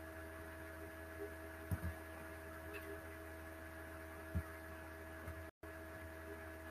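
Steady electrical hum, mains hum picked up by the recording microphone, with several fixed tones. There are a couple of faint low thumps, and the sound cuts out for a moment a little after five seconds in.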